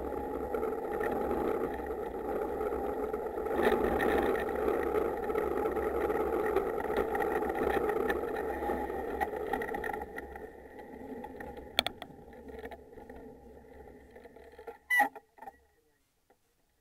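Onboard sound of an engineless soapbox car rolling fast down an asphalt street: a steady rolling rumble and rattle from its wheels and chassis, which drops off about ten seconds in as the car slows. There are a few sharp knocks near the end.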